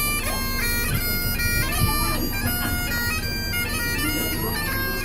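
Bagpipes playing a melody of quick stepped notes over a steady drone.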